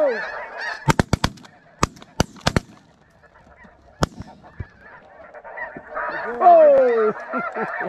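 Shotguns from several hunters fire a rapid volley at a passing flock of snow geese: about eight shots between one and two and a half seconds in, then a single shot at about four seconds. A dense chorus of snow goose calls fills the air before the volley and picks up again from about six seconds, with one long call falling in pitch.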